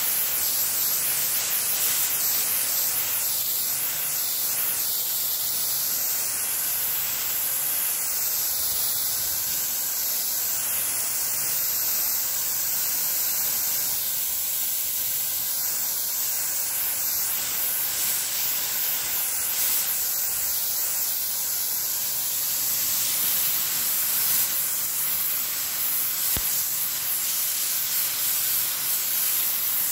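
Fine water spray from a watering nozzle, hissing steadily as the mist is played over young pomelo plants.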